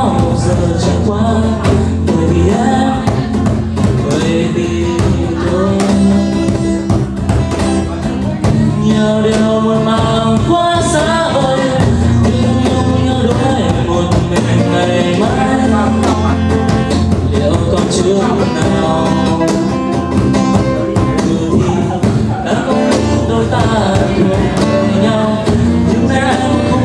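Live acoustic song: two acoustic guitars playing while a male voice sings a melody into a microphone.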